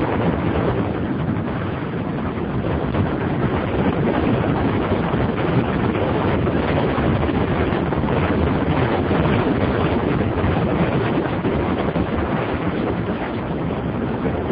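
Steady wind rush buffeting the microphone of a camera on a motorcycle riding at road speed, with the bike's running noise mixed underneath.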